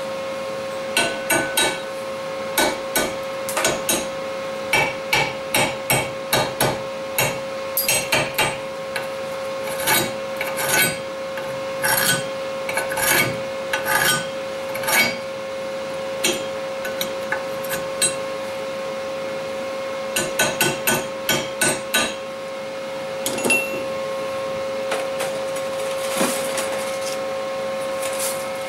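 Chipping hammer striking a freshly welded stainless steel stick-weld bead to knock the slag off: sharp metallic taps in quick clusters for most of the time, then only a few scattered taps near the end. A steady hum runs underneath.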